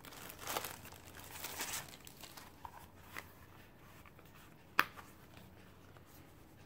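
Clear plastic bag crinkling as a floral notebook cover is slid out of it, then quieter handling. About five seconds in comes a single sharp click: the cover's snap closure popping open.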